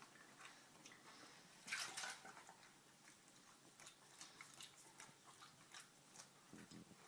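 Near silence with faint scattered clicks and a brief soft rustle about two seconds in.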